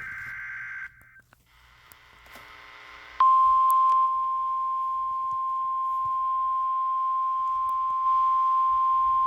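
Emergency Alert System data burst, the warbling SAME header tones, cutting off just under a second in. After a couple of seconds of radio hiss, the steady single-pitch NOAA Weather Radio warning alarm tone comes on about three seconds in and holds, signalling that a warning message follows.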